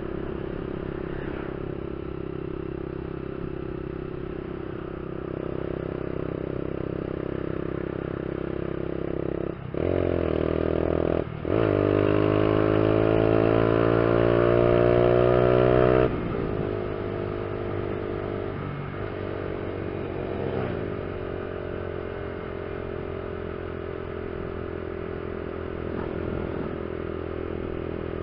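Honda CG 150 Fan ESDi motorcycle's single-cylinder engine running at a steady cruise. About ten seconds in, the throttle opens and the engine note climbs, dips briefly, then climbs louder for about four seconds before falling back to the steady cruise note.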